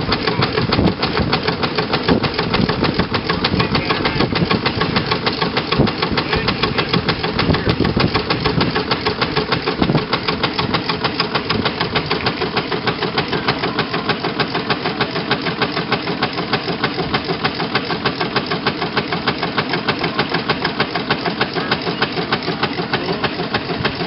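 1906 Russel steam engine running at a steady speed, a fast, even beat of strokes that becomes very regular after about ten seconds.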